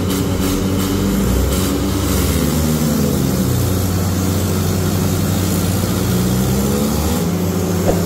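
Several diesel tractor engines, among them a Mahindra 575, running hard together under load as they drag a sand-filled trolley out of soft ground. Their pitches rise and fall, with one engine revving up shortly before the end.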